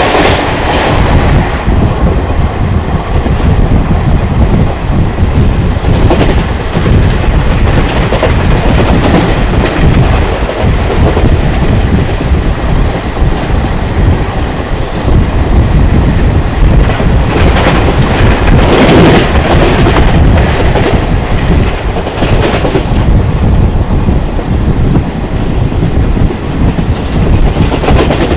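Passenger train running at top speed, heard from aboard: a steady loud rush of wheels on rail and wind, with the clickety-clack of wheels over rail joints.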